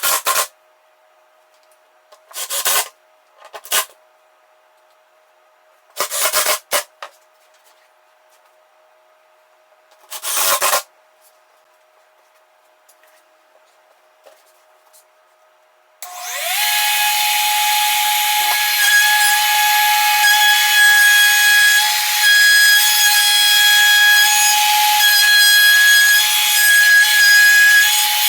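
A few short rubbing or scraping strokes on wood, then an electric power tool starts about two-thirds of the way in. It runs steadily with a high whine while working wood, and begins to wind down right at the end.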